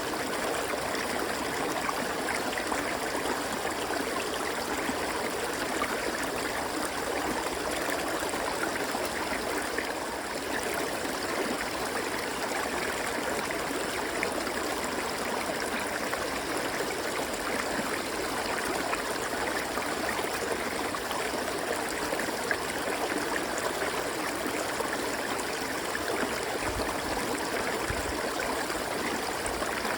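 River water flowing steadily, a continuous rushing with fine splashing and no let-up.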